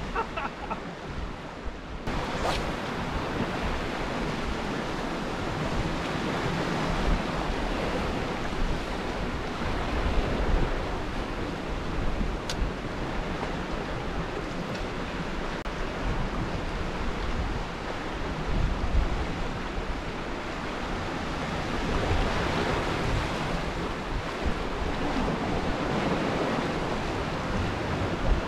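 Sea swell surging and breaking against the rocks in a steady wash of surf, with gusts of wind rumbling on the microphone now and then.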